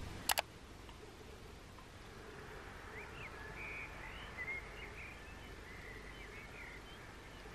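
A sharp double click just at the start, then faint outdoor ambience: a low steady hiss with scattered short bird chirps through the middle.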